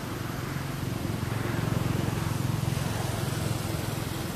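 Steady outdoor background noise, with a low rumble that swells about a second and a half in and then fades.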